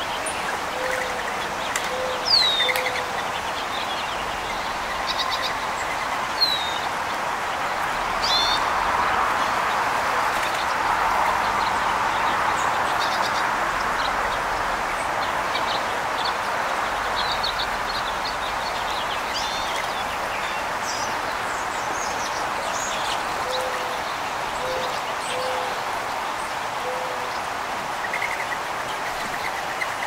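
Songbirds chirping with short, sharp calls at a feeding table. A mourning dove coos a short series of low notes near the start and again about 24 seconds in, over a steady background hiss that swells for a while in the middle.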